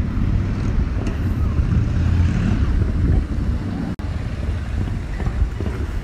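Wind buffeting a phone's microphone outdoors: a steady heavy low rumble, broken by a brief gap about four seconds in.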